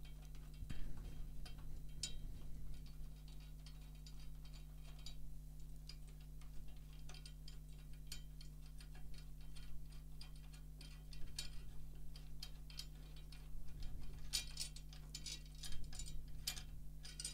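Snare drum tension rods being unscrewed by hand, the threaded metal rods giving faint, irregular small clicks and ticks as the batter head is loosened, with the clicking busiest near the end.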